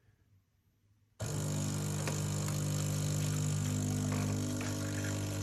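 Bean-to-cup coffee machine's pump kicking in suddenly about a second in and running steadily with a low hum as it starts brewing the espresso.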